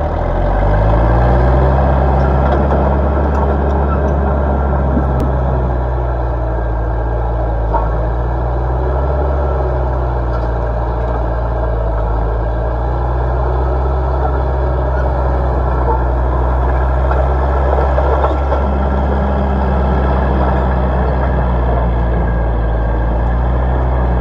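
Caterpillar 941 track loader's diesel engine working under load, revving up in the first second, then running steadily with small shifts in pitch as the machine moves and lifts its bucket.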